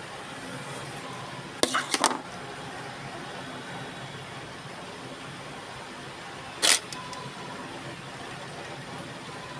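Steady background hiss with brief, loud rustling scrapes close to the microphone: a quick cluster of three about two seconds in and a single one near seven seconds, from hair and hands being handled right by the phone.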